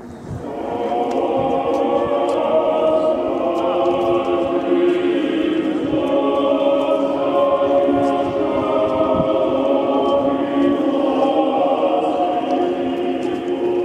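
Choir singing slow, held chords: the music that accompanies a mechanical clock's procession of apostle figures. It swells in about half a second in.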